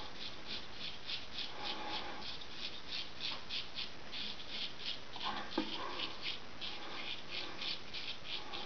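Gold Dollar 66 straight razor scraping through stubble on the chin and neck in short, quick strokes, about three a second, with a single sharp tap a little past halfway.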